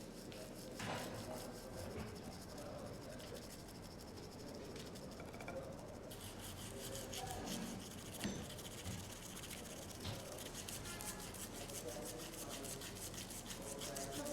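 Steady hand rubbing or scrubbing with a fine, rapid scratching texture, like a brush or abrasive worked over a metal typewriter part. It grows denser from about six seconds in, with a few light ticks.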